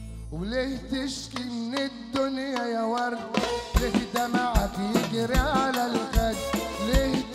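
Middle Eastern dabke music: a held string chord gives way to an ornamented melody line with sliding notes, and drums and hand percussion come in about three and a half seconds in, with a heavy beat roughly every three quarters of a second.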